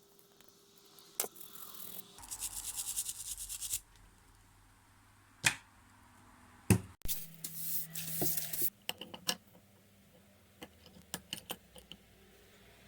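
A brush scrubbing a rusty wrench in quick back-and-forth strokes, in two short spells, with a few sharp knocks and light clicks of the metal tool being handled in between.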